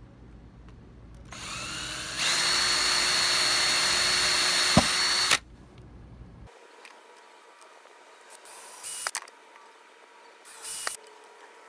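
Power drill with a 1/8-inch bit boring holes in a PVC pipe cap. The motor spins up, runs steadily for about three seconds and stops. Two short bursts of drilling follow near the end.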